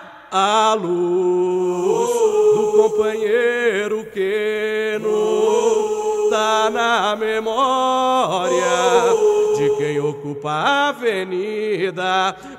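A group of voices singing a samba melody together in long held and sliding notes, with the drums largely dropped out behind them. The singing starts after a brief gap.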